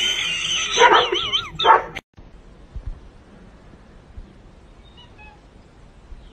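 Dog vocalizing loudly for about two seconds: a long call that rises in pitch, then a warbling call that wavers up and down, before the sound cuts to a much quieter stretch.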